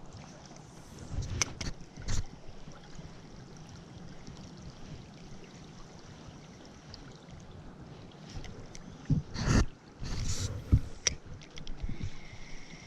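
Stream water running steadily, with a few short knocks and sloshing noises; the loudest is a brief whoosh about nine and a half seconds in.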